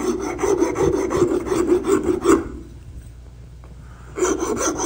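Iwasaki rasp cutting the edge of a wooden board in quick, even strokes: a run of rasping for a couple of seconds, a short pause, then a second run near the end.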